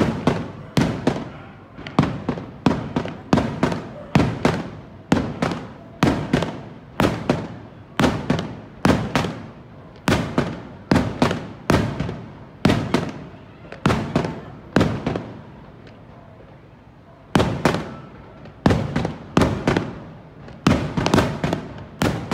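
Fireworks display: aerial shells bursting in a rapid string of sharp bangs, about two a second, each trailing off briefly. The bangs pause for about two seconds roughly two-thirds of the way through, then resume.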